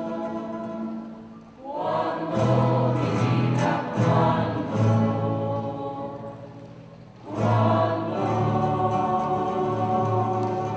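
Mixed choir singing with a group of acoustic guitars. A held chord fades out about a second and a half in. Voices and guitars come back in sharply around two seconds, die away toward seven seconds, and come in loud again just after.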